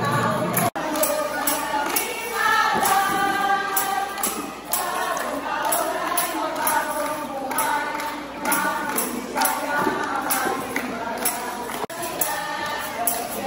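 A group of voices singing a song together in chorus. The sound drops out for an instant about a second in and again near the end, where the recording jumps between performances.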